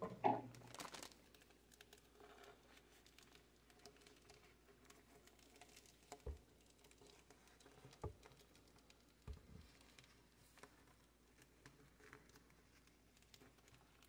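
Near silence with faint handling noise: a short crinkle of the flexible exhaust hose's plastic wrapping in the first second, then a few faint ticks and three soft low thumps in the middle.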